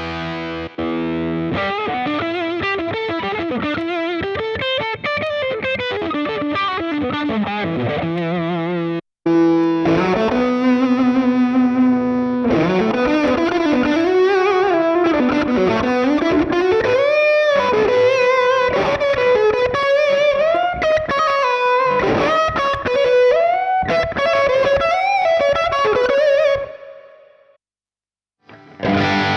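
Electric guitar played through Fractal Audio FM9 amp-modeler presets: a passage for the first nine seconds, then, after a brief cut, a louder lead line of single notes that bend and waver in pitch, dying away before a new preset starts just before the end.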